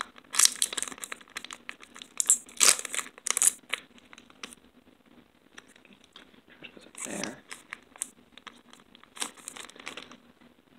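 Foil trading-card booster pack wrapper crinkling and being torn open by hand, in bursts of sharp rustles, busiest in the first few seconds and again near the end.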